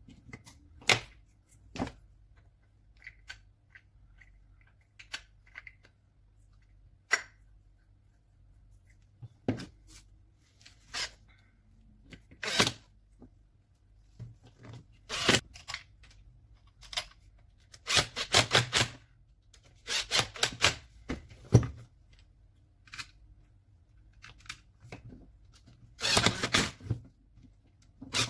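Metal and plastic parts of a Makita 9237C polisher clicking and knocking against each other and the workbench as it is reassembled by hand, with several bursts of quick rattling clicks.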